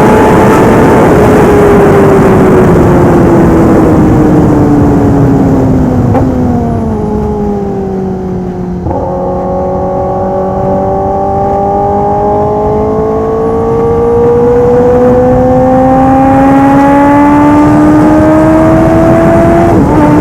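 Kawasaki ZX-10R inline-four sportbike engine through a full aftermarket exhaust system, under way. The revs fall for the first nine seconds or so, with a sudden step up in engine pitch about nine seconds in. They then climb steadily under acceleration and drop suddenly at a gear change right at the end.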